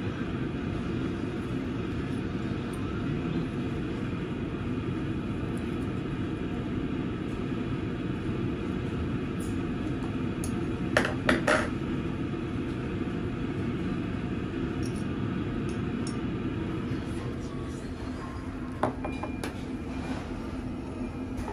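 Steady din of a busy restaurant with indistinct voices, broken by three quick clinks of tableware about halfway through and another a few seconds later.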